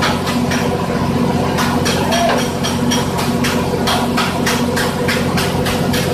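Machinery running with a steady hum and a regular sharp clicking, about four clicks a second.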